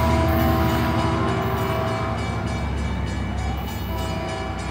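Departing passenger train led by an EMD F59PH diesel locomotive, its engine drone and rail rumble fading steadily as it pulls away; the pitched engine tone dies down about halfway through.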